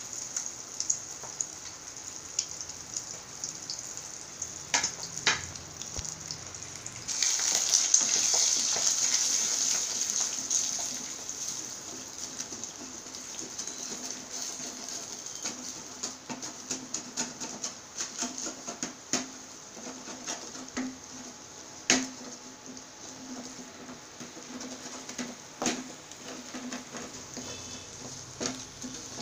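Eggs frying in a metal pan. The sizzle swells loudly for a few seconds about seven seconds in, then settles back, while a spatula scrapes and taps against the pan as the eggs are broken up and scrambled.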